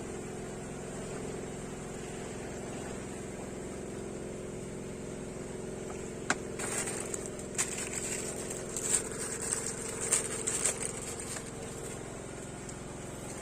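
A small engine running steadily with an even hum. Scattered sharp clicks and short high hissing bursts come in over the second half.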